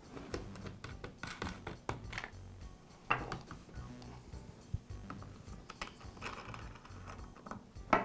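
Soft plastic clicks and rubbing as a chainsaw's air filter cover and round air filter are lifted off by hand, with a sharper click about three seconds in, over faint background music.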